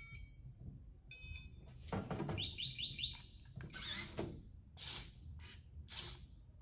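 Electronic beeps from a toy robot kit's controller as it starts up, with four quick rising chirps, then several short bursts of noise.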